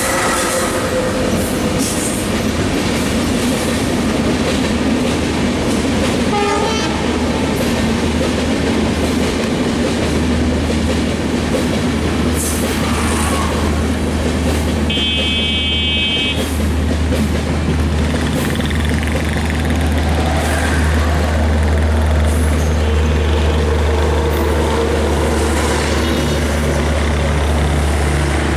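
Diesel-hauled passenger train with a WDM3A diesel locomotive and LHB coaches: a steady low engine drone with rail noise, growing stronger about halfway through. A short high horn toot sounds near the middle.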